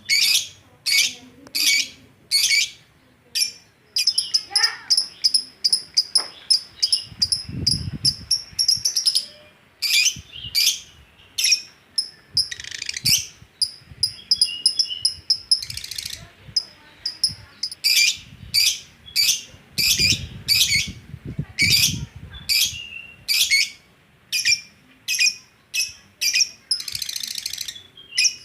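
Songbirds singing: loud, sharp, shrill chirps repeated about twice a second, with a high, steady trill running under them for a few seconds at a time.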